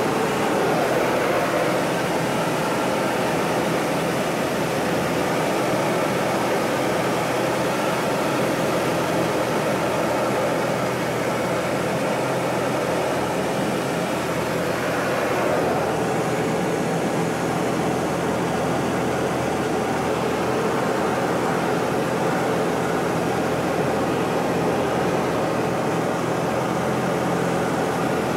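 Pitts biplane's piston engine and propeller running steadily in flight, a loud unbroken drone heard from inside the cockpit.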